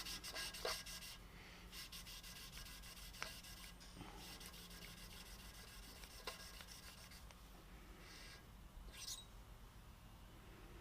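Cummins 12-valve head valve being hand-lapped into its seat with coarse lapping compound: faint, gritty rubbing as the valve is twisted back and forth against the seat, with a few light clicks. The lapping is meant to wear away a ridge showing around the valve face.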